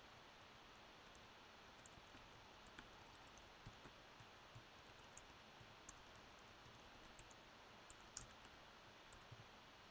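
Near silence: steady faint room hiss with sparse, irregular soft clicks of a computer keyboard, a few a second, the sharpest about 8 seconds in.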